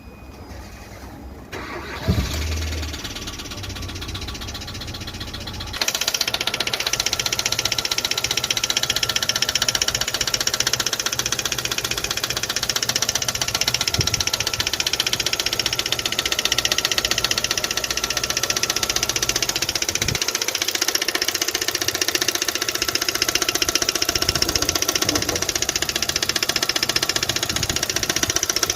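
Hyundai/Kia Gamma four-cylinder petrol engine (G4FA/G4FC) started about two seconds in, then running from about six seconds with a fast, steady metallic knocking. The mechanic later traces the knock to metal fragments in cylinder 3 and suspects a broken valve seat or valve guide.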